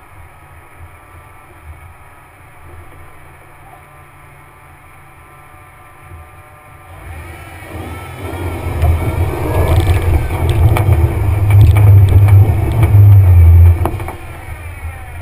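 Jeep Wrangler engine heard from a hood-mounted camera, running low at first, then revved hard from about halfway through while the tires spin on a steep muddy hill, with mud and stones hitting the hood. The revs cut off suddenly near the end: the climb fails.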